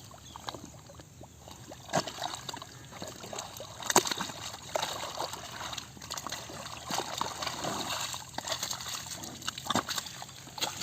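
Buffalo grazing close by: an irregular run of crisp clicks and rustles of grass being torn and chewed, with sharper snaps about two and four seconds in.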